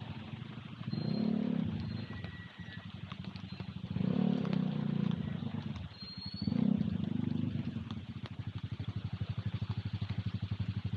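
Motorcycle engines in traffic, swelling up three times as they pull away or pass, then an engine idling with a fast, even pulse near the end.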